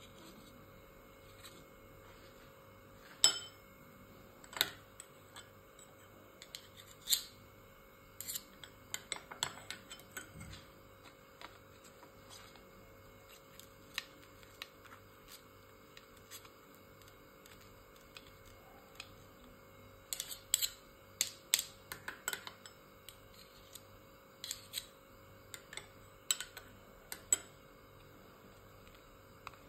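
Steel spoon spreading garlic butter onto bread slices on a paper plate: scattered scrapes and sharp clicks of the spoon against the bread and plate, coming in small clusters, over a faint steady hum.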